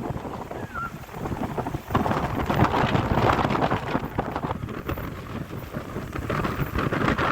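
Sea surf washing in, mixed with wind on the microphone: a steady rushing noise that swells about two seconds in and eases off a little after four and a half seconds.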